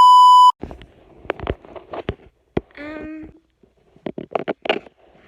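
A loud, steady, high beep lasting about half a second, then a series of irregular knocks and clicks, with a short pitched sound about three seconds in and a quick cluster of knocks near the end.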